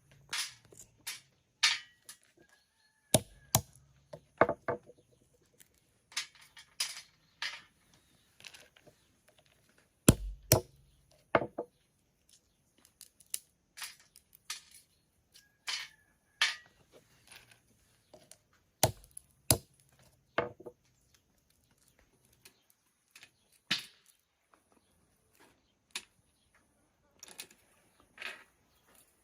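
Scattered sharp knocks and taps of hand food preparation, irregularly spaced about every second or so, with a few heavier thuds among them.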